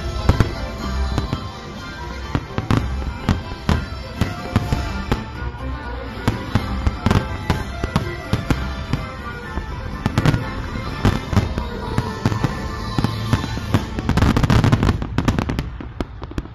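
Aerial fireworks bursting overhead: a string of sharp bangs at irregular intervals, building to a dense run of rapid crackling bangs near the end, with music playing underneath.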